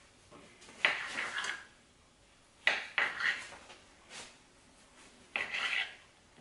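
Kitchen knife slicing through a log of rolled cinnamon-roll dough, the blade knocking onto the stone countertop. There are four cuts, each a sharp knock followed by a short scrape.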